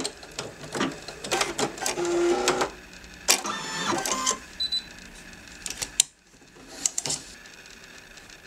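Brother computerized embroidery machine working in short, irregular bursts of clicks and whirs, with a brief run of rapid stitching about four seconds in. The mix of clicks and whirs is typical of the hoop carriage moving and the thread being trimmed between stitch runs. After about six seconds it drops to a faint steady hum.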